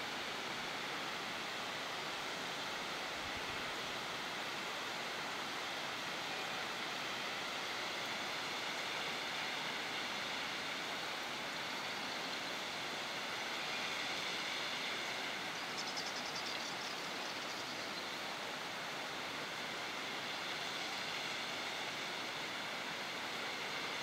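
Steady rush of a waterfall's falling water, an even unbroken noise.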